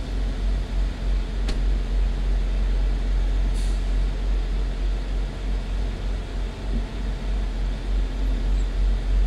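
Semi truck's diesel engine idling, heard from inside the cab: a steady low rumble.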